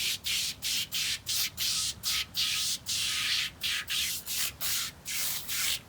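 Aerosol can of oven cleaner spraying in short hissing bursts, about two to three a second, laying a thick coat on greasy engine parts to soak off the dirt.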